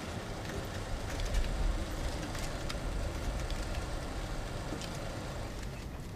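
Footsteps of a small group walking on a stone pavement, heard as scattered light clicks over a steady low rumble that swells briefly about a second in.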